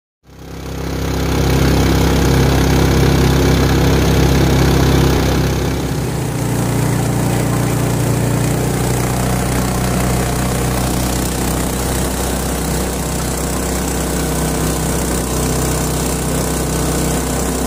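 Small petrol engine of an open river boat running at speed, a steady drone that fades in over the first second. Its note shifts a little about six seconds in.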